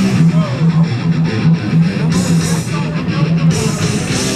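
Loud heavy rock music with electric guitar over a pulsing, repeating bass line and a steady beat.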